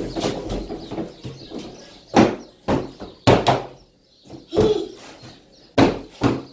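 A string of about seven sharp knocks and bangs, irregularly spaced from about two seconds in, with softer shuffling thumps before them, inside a small enclosed play hut where children are running about.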